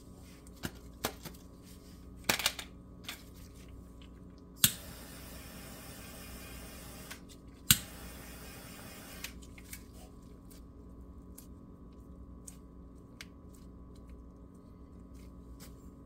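Handheld torch clicked alight and hissing for about five seconds while heat-shrink tubing is heated over chafed wires, with a sharp click midway and scattered light clicks from handling the wires before and after.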